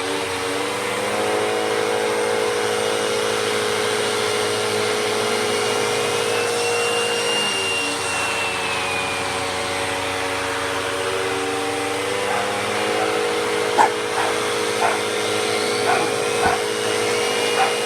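Royal ProSeries Quick Rewind vacuum cleaner running steadily with its turbo tool. A faint whistle rises and falls in the middle, and the motor's pitch drops slightly about eight seconds in. Several sharp knocks come in the last few seconds.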